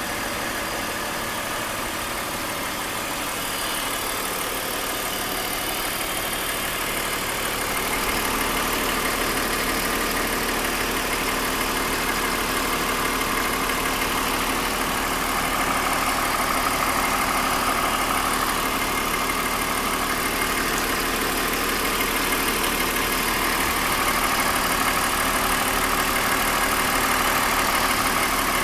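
BMW E39 530i's M54 straight-six engine running steadily at idle, carrying an abnormal noise whose cause the owner has not yet found.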